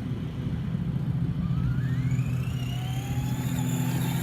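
Traxxas Slash RC truck running with its engine sound-effects system on: a steady low simulated engine drone, with a thin whine rising in pitch over about two seconds from a second or so in.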